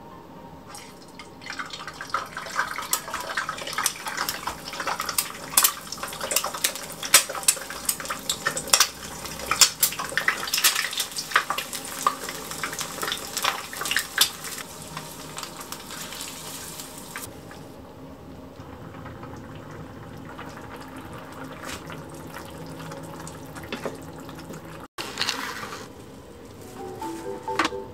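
An egg deep-frying in a wok of hot oil, Thai fried-egg style: loud, dense crackling and spitting for about fifteen seconds after it goes into the oil, then settling to a quieter, steady sizzle.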